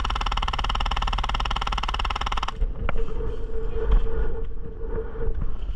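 Airsoft electric gun firing one sustained full-auto burst of about three seconds, a rapid even rattle that stops abruptly. Low wind rumble on the microphone underneath.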